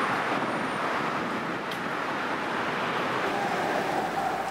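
Steady road traffic noise, a continuous wash of passing vehicles, with a faint steady tone joining near the end.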